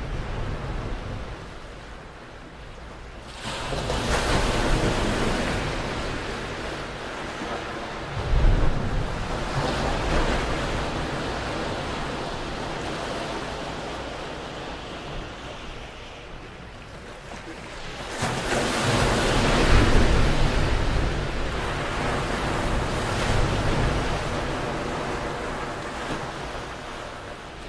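Waves breaking and washing up on the beach, in two long surges: one a few seconds in and a louder one past the middle, each building and then fading over several seconds.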